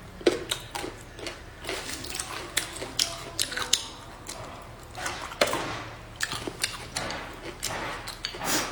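Tableware sounds of a meal: irregular clicks and taps of chopsticks against bowls and plates as food is picked up, with eating sounds between.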